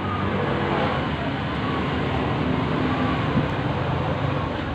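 Steady road traffic noise, a continuous wash of passing vehicles.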